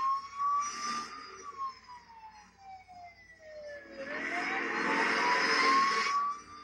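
Police car siren wailing through a TV speaker: it rises, slides slowly down for about three seconds, then rises again. Loud bursts of car engine and tyre noise come near the start and again from about four seconds in, the loudest part.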